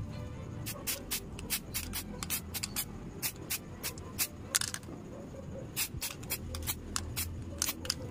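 Aerosol spray can of primer hissing in quick short bursts, about three a second with a brief pause about halfway, as a small plastic model part is misted. Background music plays underneath.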